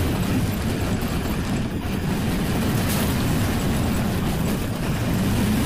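City bus engine and road noise heard from inside the moving bus: a steady low drone.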